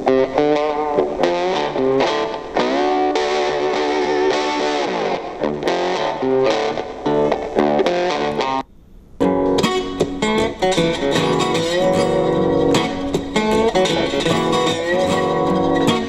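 Guitar-led music playing through the small speaker of a Retekess HR11S pocket radio in MP3 mode, picked up close to the speaker. The music breaks off for a moment about nine seconds in, and a different track starts.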